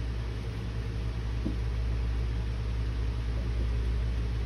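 A steady low hum with faint hiss above it, unchanging in level.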